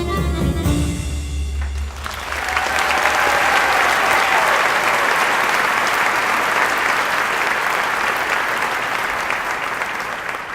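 Irish dance music ends about two seconds in. An audience then applauds steadily, and the applause starts to die away near the end.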